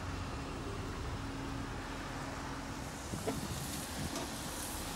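Holden Commodore station wagon creeping forward through shallow floodwater, its engine running at low speed with a steady low hum. There is a small knock about three seconds in.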